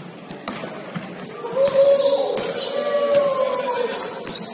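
Basketball game sounds: a ball bouncing on the court, with short high squeaks. A voice calls out in one long drawn-out shout that starts about a second in and lasts about three seconds.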